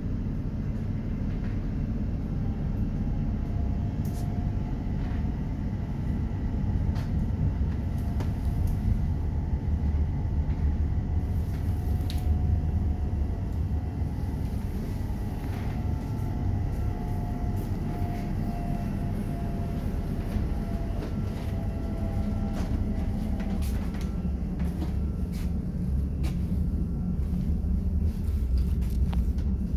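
Light-rail tram running, heard from inside the passenger car: a steady low rumble of wheels on the track with scattered clicks and rattles. A faint whine comes in a few seconds in and fades out late in the stretch.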